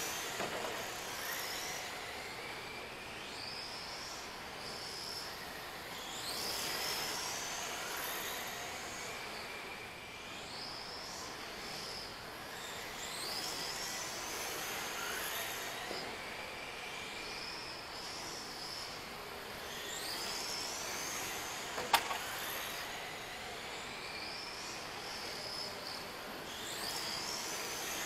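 Whine of a 1/10 RC car's sensorless brushless motor (Hobbyking XK3650 3200kV on an X-Car 120A ESC) and its belt drive. The whine rises in pitch as the car accelerates and falls back as it slows, once every lap, about every six to seven seconds. A single sharp crack about two-thirds of the way through is the loudest sound.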